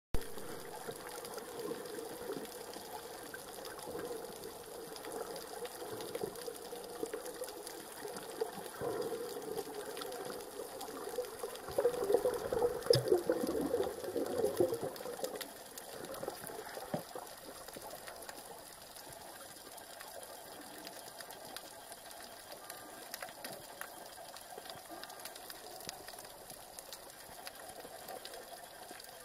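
Underwater ambience picked up by a submerged camera: a steady hiss scattered with faint clicks, with a louder rush of moving water from about 12 to 15 seconds in.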